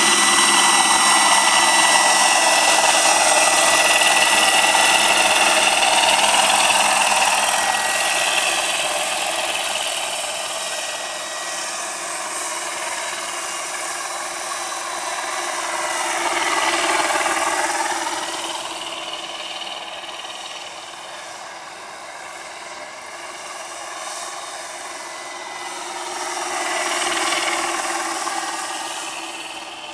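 Radio-controlled scale medical helicopter in flight, its motor and rotors giving a steady whine. Loudest at first, it fades as it moves off, then swells louder twice as it passes closer, about halfway through and near the end.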